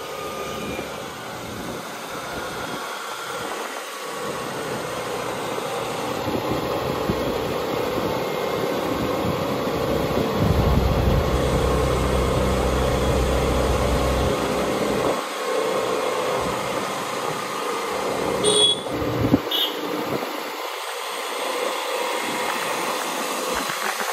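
Steady road noise from moving vehicles on a wet road: tyres, wind and engine running together. A deeper rumble swells for a few seconds in the middle, and a couple of brief sharp sounds come about two-thirds of the way through.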